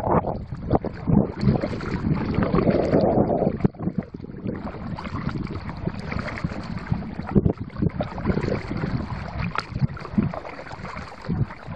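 Wind buffeting the microphone, mixed with water splashing and lapping around a kayak as it is paddled across a lake. The sound comes in uneven gusts and splashes.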